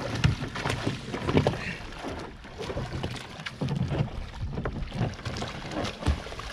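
Water splashing and sloshing around a plastic sit-in kayak as a swimmer hauls himself onto its bow and kicks his legs, with irregular thumps and splashes throughout.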